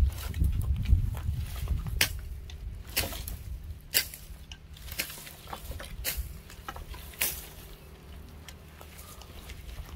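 Dry wooden poles knocking together as they are picked up and handled, with rustling and footsteps in dry brush. Sharp knocks come about once a second, then thin out and fade over the last few seconds.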